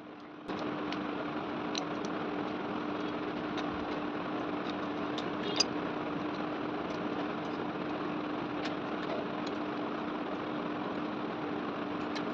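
Electric fan running: a steady hum with whooshing air, switching on abruptly about half a second in, with scattered faint ticks and one sharper click midway.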